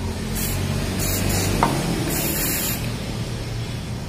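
An aerosol can of carburetor cleaner sprayed in several short hissing bursts, the last the longest, into the carburetor intake of a brush cutter that won't start, with a low steady hum underneath. A sharp knock comes right at the end.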